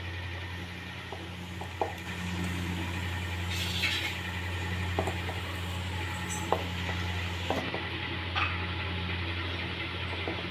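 A hand mixing crumbly ground chana dal and jaggery in a stainless-steel bowl: scattered light knocks and scrapes against the steel over a steady low hum.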